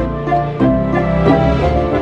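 Background music: a melodic instrumental track with a steady bass line.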